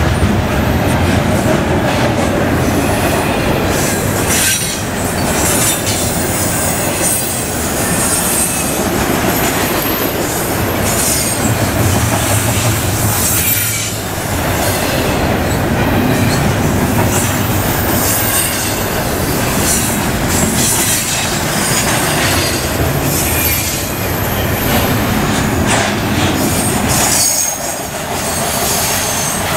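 Double-stack intermodal container train passing close by: a steady loud rumble and clatter of steel wheels on rail, with high thin wheel squeals. The level dips briefly a few times, and a steady high squeal rings near the end as the last car passes.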